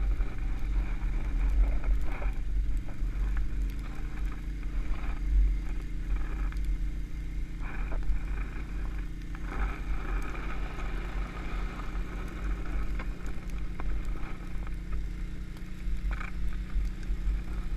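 Can-Am XMR ATV engine running steadily at low speed while towing on a rope, over a low rumble and scraping from a plastic trash can lid sliding on packed snow.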